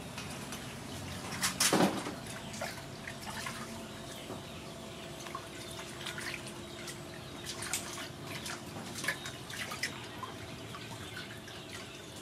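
Hands washing pig ears in a large aluminium basin of water: irregular splashing and dripping as the ears are rubbed and lifted out. There is one louder knock about two seconds in.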